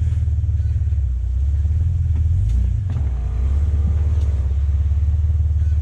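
Off-road 4x4's engine running at low revs, a steady low drone with a slight dip a little under three seconds in.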